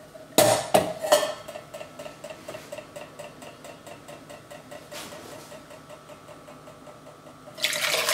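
Stainless steel utensils clattering a few times as a conical strainer is set onto a pot, followed by a faint rapid ticking at about five a second. Near the end, red-wine marinade starts pouring from a glass dish into the metal strainer.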